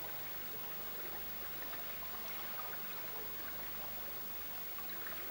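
Faint, steady trickling and rippling of water, with small scattered drips.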